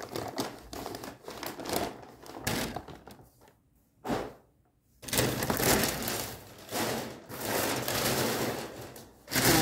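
Rustling, crinkling and light knocking of gift packaging being handled, in uneven bursts, with two short cuts to silence near the middle.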